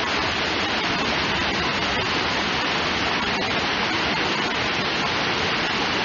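Waterfall and the rocky stream cascading below it, rushing steadily.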